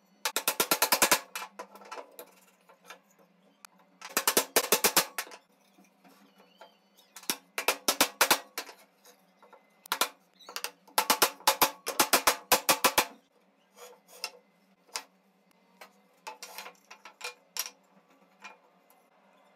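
Runs of rapid, sharp knocks on wood, about ten a second, as the wooden tenons of a chair frame are driven home into their mortises. Four runs come in turn, with lighter scattered knocks near the end.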